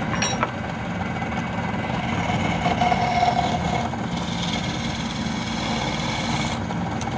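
Wood lathe running steadily with a motor hum as a wooden spindle spins. About four seconds in, a hand-held turning tool cuts into the end of the spindle, adding a brighter cutting hiss for a couple of seconds.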